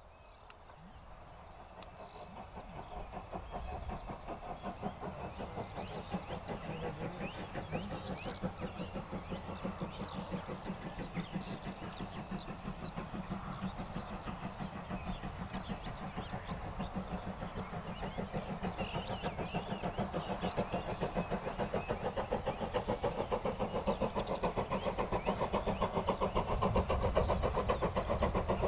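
Steam locomotive approaching under power, its exhaust beats in a fast, even rhythm that grows steadily louder. Birds sing over it.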